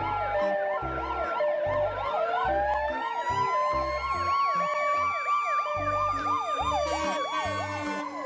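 Ambulance siren: a rapid up-and-down yelp throughout, with a long wail that rises in pitch about two seconds in and then holds high. Background music with a steady low beat plays underneath.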